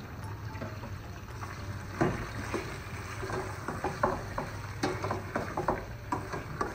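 Metal fork and slotted spatula scraping and knocking against a stainless steel pot as chunks of chicken and potato are stirred in oil, in irregular clicks that come mostly in the second half. A steady low hum runs underneath.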